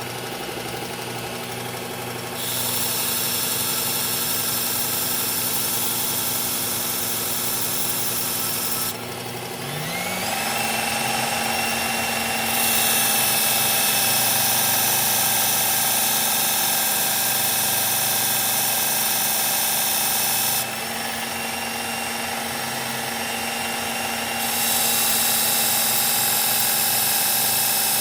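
Electric belt sharpener running steadily while a knife blade is pressed against the moving abrasive belt, each pass of several seconds adding a high grinding hiss. About nine seconds in, the motor speeds up and its whine rises in pitch.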